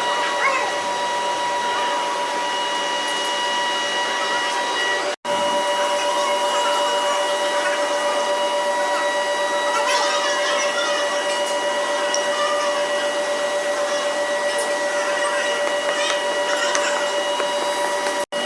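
Workshop machine motor running with a steady, high whine. The sound drops out briefly twice, about five seconds in and near the end.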